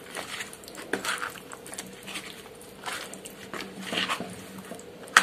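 Raw prawns being mixed by hand in a spice-paste marinade in a plastic container: irregular wet squishing and slapping, a few soft sounds a second, over a faint steady hum.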